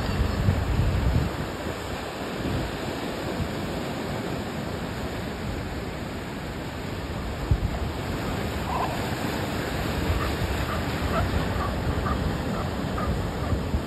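Ocean surf breaking and washing over rocks, a steady rush of white water, with a heavier surge in the first second. Wind buffets the microphone, and a few faint short calls come through in the second half.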